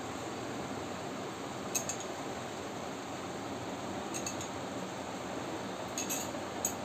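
A metal spoon clinking lightly against a small glass bowl a few times as mustard oil is scooped out and drizzled, over a steady background hiss.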